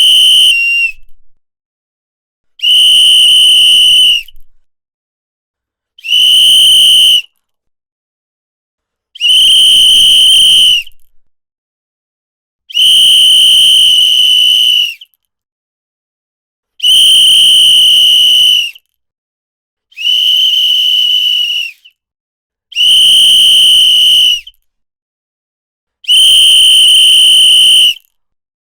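A whistle blown in a series of long blasts at one steady high pitch, each lasting about one and a half to two seconds, with silent gaps of a second or two between them.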